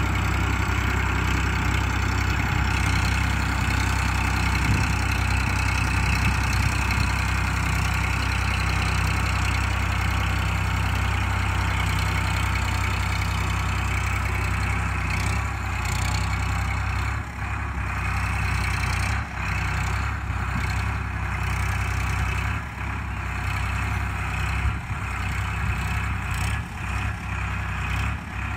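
Eicher 557 tractor's diesel engine running steadily under load as it drags a rear land leveller across loose soil. In the second half the sound dips briefly several times.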